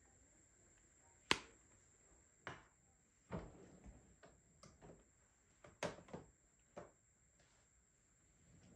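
A sharp click as a hard-cased eyeshadow palette is snapped shut about a second in, followed by scattered light taps and knocks of makeup items being handled and set down.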